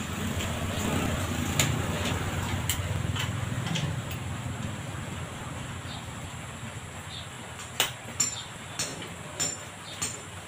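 A motorcycle tricycle's engine passes, rising and fading over the first few seconds. From about eight seconds in come sharp clinks, roughly two a second, as a steel rod is worked in a bending jig.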